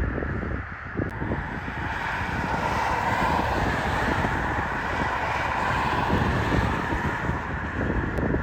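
Wind buffeting the microphone over a steady wash of road traffic, which swells for a few seconds mid-way.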